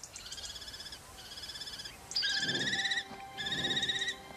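Common kestrel chicks giving food-begging calls at the nest: four drawn-out, wavering trills, each under a second, with the second pair loudest as an adult arrives with food.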